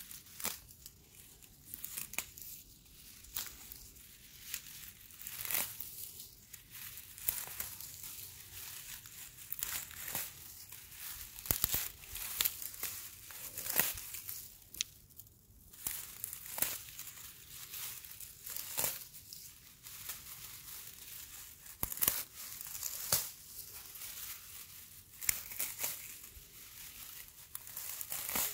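Dry grass tufts crackling and tearing as a hand grips and tugs at them, with irregular sharp snaps of brittle stems.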